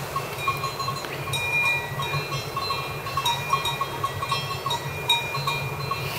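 Small bells clinking irregularly over a low steady rumble.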